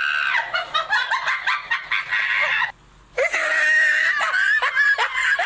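A woman's high-pitched squealing and laughing, cut by a short drop to silence a little under three seconds in, then a run of quick rising squeals.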